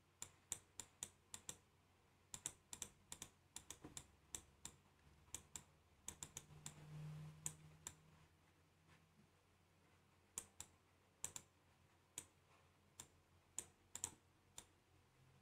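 Faint, sharp clicks of computer keys and a mouse, coming in quick runs of several with pauses between, while a Photoshop brush is resized and used to paint on a layer mask. A brief soft low noise sits around the middle.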